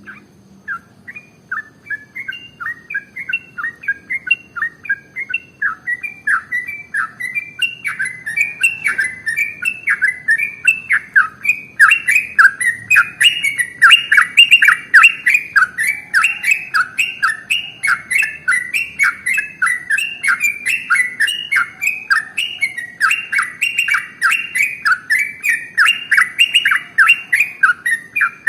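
Yellow-vented bulbul (trucukan) singing a long unbroken rapid-fire 'ropel' song of short chirping notes, several a second. It starts softly just after the beginning and grows louder about eight seconds in and again about twelve seconds in.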